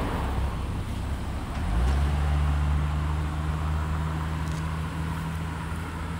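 Low rumble of traffic, then about two seconds in a low motor hum rises briefly in pitch and holds steady, as from a vehicle engine running.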